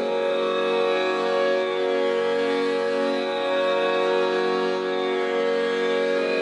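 Instrumental soundtrack music: a dense drone of held, steady tones with an Indian-classical, string-like colour.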